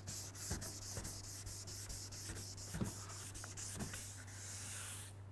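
Wet sanding car paint by hand with 1000-grit wet-or-dry paper on a sanding pad: quick repeated rubbing strokes of abrasive on single-stage paint, a light pass to knock down the 600-grit scratches.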